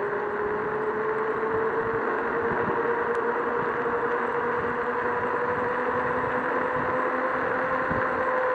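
Joyor S5 electric scooter's motor whining steadily as it accelerates, its pitch rising slowly, over steady wind and tyre rush.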